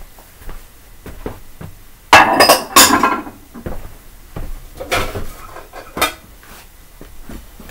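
Dishes being washed and handled: plates and cutlery knocking and clinking together. A loud clatter comes about two seconds in and lasts about a second, with scattered sharper clinks later.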